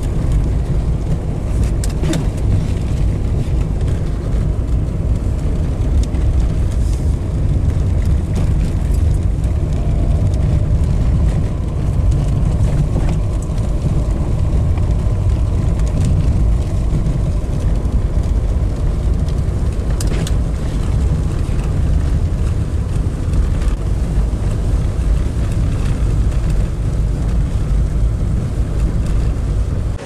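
Car driving along a snow-covered road: a steady low rumble of engine and tyres.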